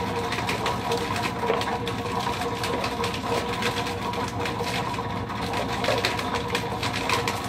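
Electric chestnut-peeling machine running: a steady motor hum with quick, irregular rattling clicks of chestnuts tumbling inside its drum.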